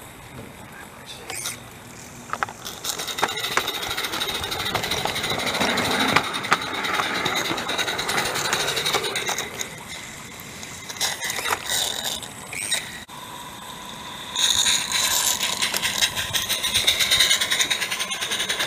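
Accucraft Ruby live steam locomotive running, heard from close behind its tender: a steady hiss with fast ticking that grows louder about two and a half seconds in and dips briefly around ten and thirteen seconds. A steady high-pitched squeal joins from about fourteen seconds in.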